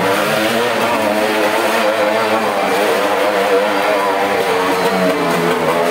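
Motorcycle engine running inside a steel-mesh globe of death, its pitch rising and falling continually as the rider circles the sphere.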